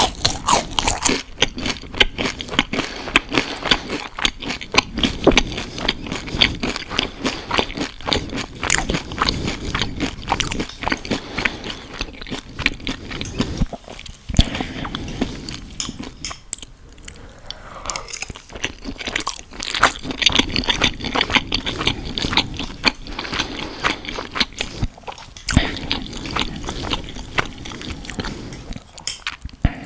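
Close-miked crunching and chewing of crisp fried onion rings, a dense run of crackly bites with a few short pauses.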